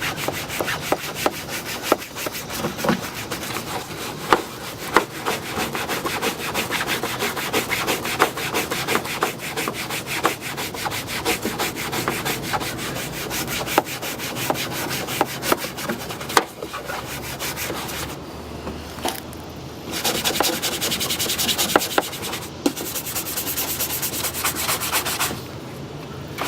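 Stiff-bristled fingernail brush scrubbing polish into a grainy plastic car bumper with quick back-and-forth strokes, a steady rasping scrub. The scrubbing pauses briefly twice, about two-thirds through and near the end.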